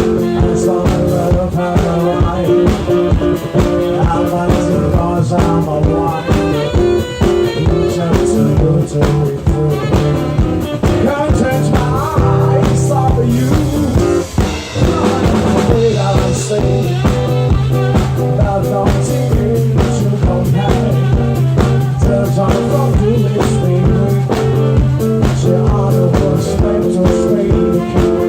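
Band music with no words, a steady beat running under sustained bass notes and melodic instrument lines.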